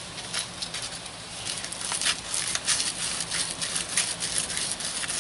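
Irregular light clicking and rustling of hands handling a steel washer, nut and cable lug on a truck battery's terminal stud.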